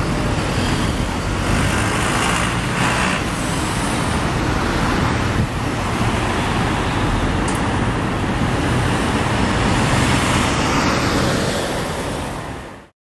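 Steady road and traffic noise heard from the open-top upper deck of a moving double-decker bus, the rumble of engines and tyres in city streets; it fades out just before the end.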